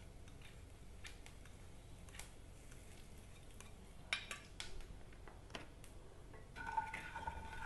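Cumin seeds and asafoetida crackling faintly in hot oil: scattered small pops, with a brief cluster about four seconds in. A steady tone comes in near the end.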